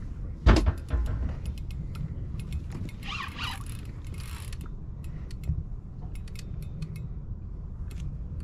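Spinning fishing reel clicking irregularly under the pull of a large hooked sturgeon. There is a single loud thump about half a second in and a steady low rumble underneath.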